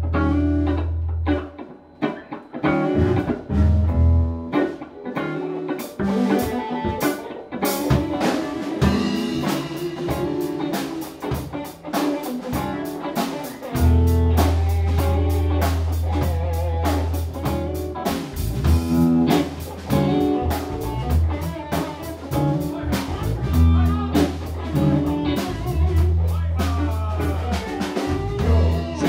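Live band playing an instrumental passage on electric bass, two electric guitars and a drum kit. It thins out and drops in level for a few seconds near the start, then the full band comes back in with busy drums and a heavy bass line.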